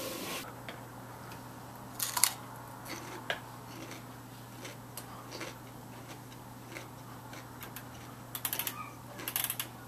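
Computer mouse clicking: a few scattered single clicks, then a quick run of clicks near the end, over a low steady hum.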